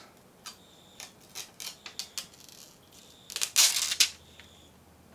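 Clear plastic curing film being peeled off cured windshield-repair resin on glass: a few light crackles and ticks, then a louder crinkling rip about three and a half seconds in.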